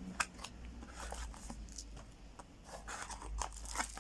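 Handling sounds of a knife box and its contents: scattered light clicks, taps and rubbing.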